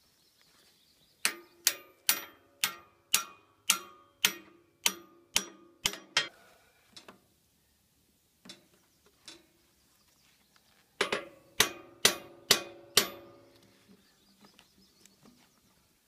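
Hammer blows on a steel log clamp, ringing metallic strikes at about two a second: a run of about ten, two light taps, then a second run of five or six.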